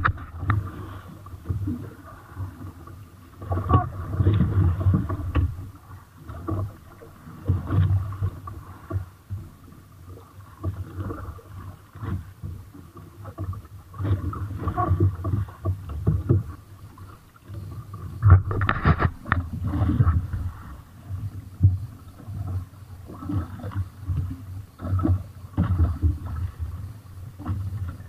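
Sea water sloshing and splashing against an outrigger fishing boat's hull and outrigger floats in uneven surges every second or two, with occasional knocks as a fishing net is hauled in over the side.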